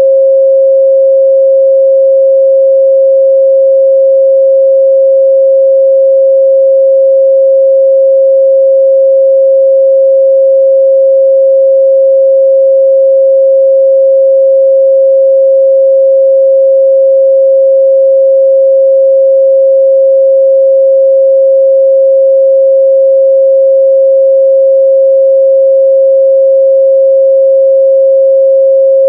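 A steady, loud 538 Hz pure sine-wave test tone, one unchanging pitch, used to check a speaker's or headphones' midrange response.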